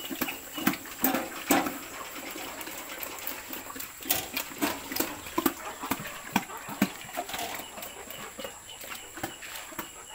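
Short, irregular farm-animal grunts and calls, mixed with scattered knocks and clatters.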